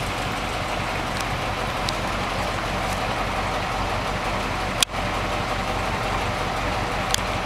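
A motor vehicle engine running steadily at a low, even hum, with a brief click and dropout about five seconds in.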